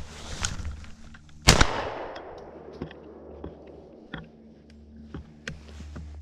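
A shotgun shot about a second and a half in, the loudest sound, with an echo trailing off for about a second, after a quieter sharp crack at the very start; scattered small clicks follow. The shot is fired at a rabbit ahead of the hounds and misses.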